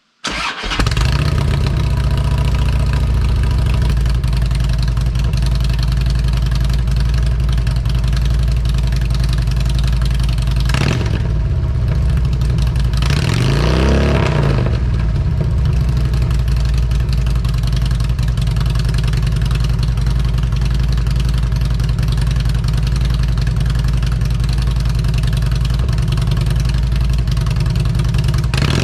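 2008 Harley-Davidson Street Glide's Twin Cam V-twin idling steadily through 4.5-inch Shark Road slip-on mufflers. The throttle is blipped briefly about eleven seconds in, and a short rev rises and falls a couple of seconds later.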